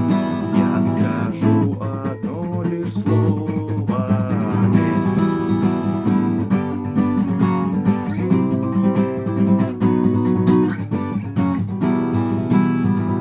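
Acoustic guitar strummed and picked, playing chords steadily.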